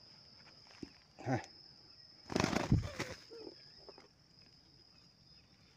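Rustling in dry grass and the flapping of a trapped spotted dove's wings in a burst about two and a half seconds in, as the bird is taken from the snare by hand. A steady high insect buzz runs underneath.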